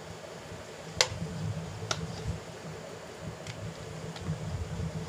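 Rolling pin rolling dough back and forth on a marble countertop, a low pulsing rumble. There are two sharp clicks, about a second in and again a second later.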